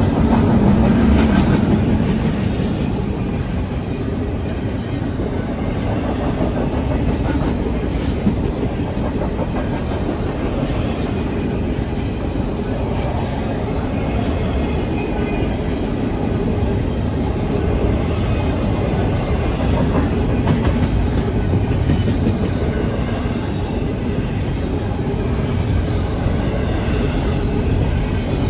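Double-stack intermodal well cars rolling past: a steady rumble of steel wheels on the rails with clickety-clack from the rail joints, and a few brief high wheel squeals around the middle.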